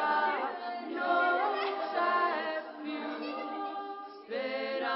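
Several women's voices singing a cappella in overlapping long-held notes, some gliding in pitch. They fall away briefly about four seconds in, then come back in together.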